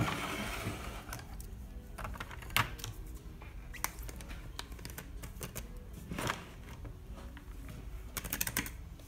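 Hands handling objects on a wooden tabletop. A sharp knock comes as a wooden bowl is set down, followed by a few scattered taps and clicks. Near the end there is a quick run of clicks as the blue screw cap of a plastic bottle of sand is twisted off.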